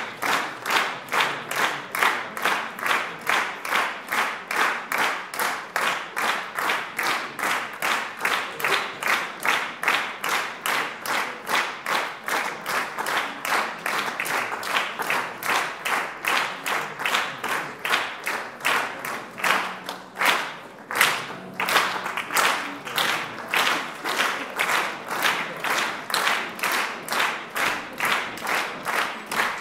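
Audience clapping in unison, a steady rhythm of about two and a half claps a second, which falters briefly about two-thirds of the way through before picking up again.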